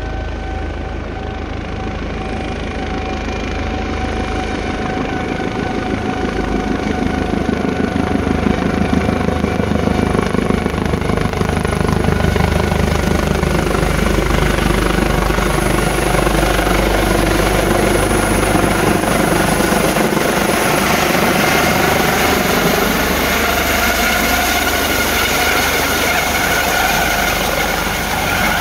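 Air ambulance helicopter with a shrouded tail rotor flying in and descending to land, its rotor beat and turbine whine growing louder over the first ten seconds or so, then holding steady as it comes low over the pad, the whine rising slightly in pitch near the end.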